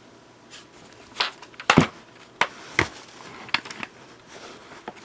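Plastic vacuum cleaner attachments being handled and set down: a string of sharp knocks and clicks with light rustling, the loudest knock about two seconds in.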